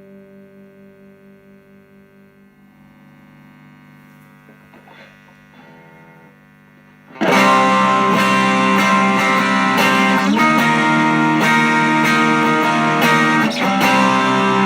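Electric guitar played through an Ibanez Tube Screamer Mini overdrive pedal: a chord rings and fades, a few quiet notes are picked, then about seven seconds in loud overdriven chords are strummed.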